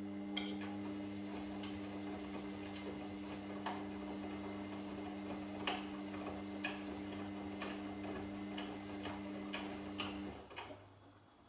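Washing machine running a wash cycle: the drum motor gives a steady hum that stops about ten seconds in, while irregular light clicks and taps sound about once a second.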